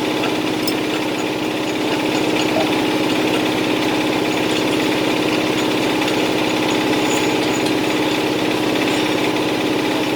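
Heavy truck diesel engine idling steadily, an even hum that does not rise or fall.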